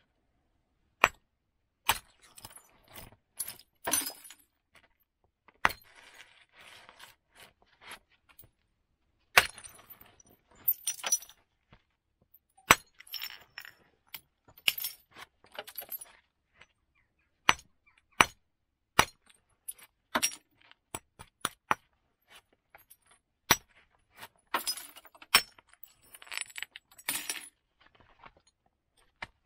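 Hammerstone striking a flint axe blank in direct percussion: sharp, irregular knocks a second or two apart, some in quick pairs, each knocking a flake off. Quieter clinks and rustling of the flint and flakes being handled come between blows.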